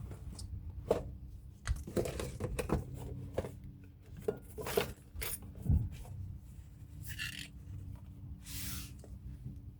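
Scattered light clicks and knocks of small metal brake parts being handled, then two short rubbing swishes near the end: the new brake hardware being fitted.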